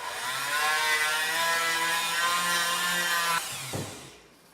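Dremel rotary tool with a sanding drum running at speed as it sands out the inside of 3/4-inch PVC pipe: a steady high whine with a hiss of sanding. About three and a half seconds in it is switched off and spins down with a short falling tone.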